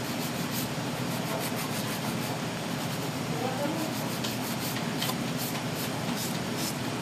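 Nail file rubbing on acrylic nails in short strokes, about two a second, shaping the stiletto points.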